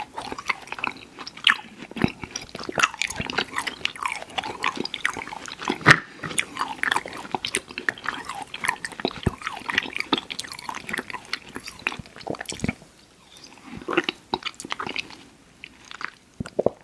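Close-miked mouth chewing Airheads Xtremes sour chewy candy: a steady run of wet smacks and sticky clicks, with a few sharper snaps, going quieter briefly twice near the end.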